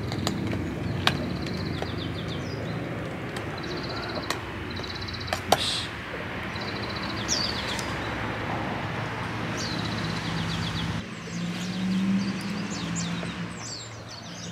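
Wild birds singing in the background: short rapid trills and downward-sliding calls, repeated every second or so, over a steady low hum. A few sharp clicks come as the dogs eat from metal bowls.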